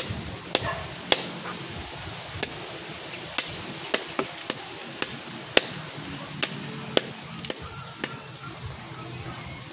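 Machete chopping into a tree branch: sharp blows of the blade on wood, about one to two a second at an uneven pace.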